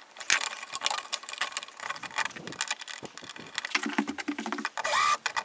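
Screwdriver driving the mounting screws of a duplex wall outlet into a blue plastic electrical box, with quick clicks, scrapes and rattles of the outlet's metal strap against the box. A brief steady-pitched tone comes near the end.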